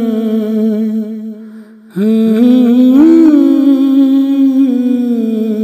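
A man's voice humming a slow, unaccompanied melody without words, in two long held phrases; the first fades away and the second begins about two seconds in. This is the wordless opening of a naat before the first sung line.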